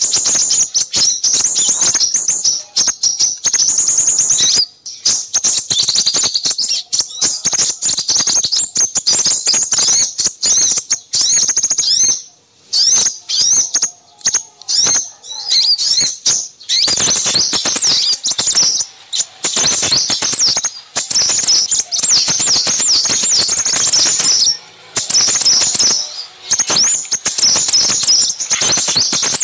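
A busy chorus of small birds chirping and twittering in dense, rapid, high-pitched bursts, with short pauses about twelve seconds in and near the end. It is a bird-lure recording of small-bird calls made to draw in crimson sunbirds.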